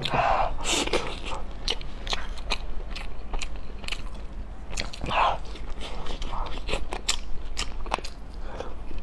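Close-miked eating of crab: biting and chewing crab body meat and roe, with many sharp clicks and crunches.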